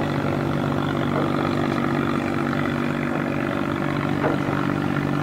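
Engine of a wooden river cargo barge running steadily under way, a low, even drone with a hiss over it.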